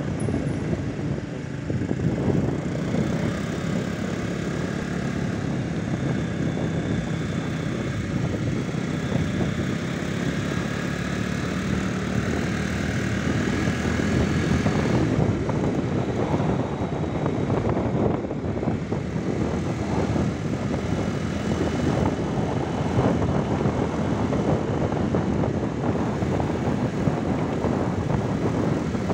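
Vehicle engine running steadily on the move, with wind and road noise rushing over the microphone, rougher and gustier in the second half.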